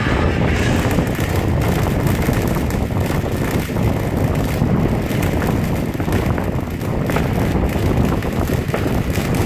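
Ground fountain firework spraying sparks: a steady hiss with dense fine crackling.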